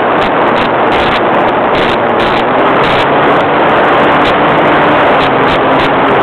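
Radio-controlled model airplane engine running in flight, heard from a camera on board, under heavy wind rush on the microphone; a faint steady hum comes in about halfway through.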